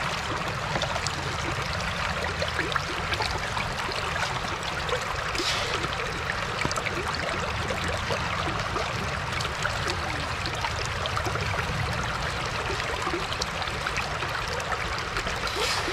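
River water rushing steadily through an aluminium sluice box, with scoops of wet gravel fed into its head. Two brief louder splashes stand out, about five seconds in and near the end.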